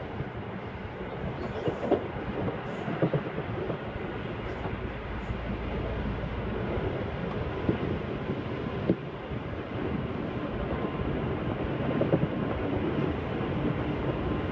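Passenger train running at speed, heard from inside the carriage: a steady rolling rumble from the wheels on the rails, with occasional sharp knocks.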